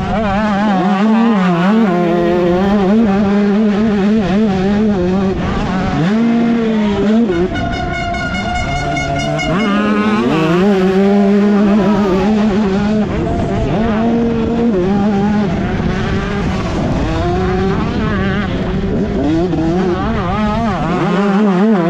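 A 125cc two-stroke motocross bike engine revving up and down as it is ridden hard, its pitch rising and falling every second or two and held high for about two seconds near the middle.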